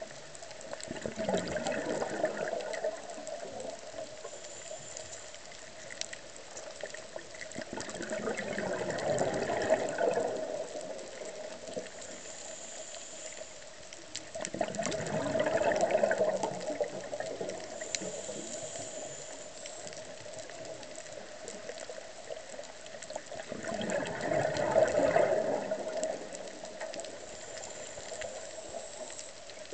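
Scuba diver's exhaled regulator bubbles, heard underwater: four gushing bursts of bubbles several seconds apart, one per breath, with faint clicking in between.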